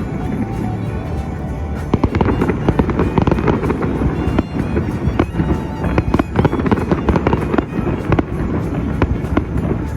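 Fireworks display with many rapid bangs and crackles following one another closely, and music playing along.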